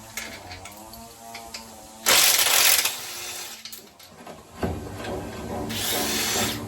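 Power tool running with a wavering pitch, then a loud burst of hiss about two seconds in, lasting under a second. Music with a thumping bass comes in near the end.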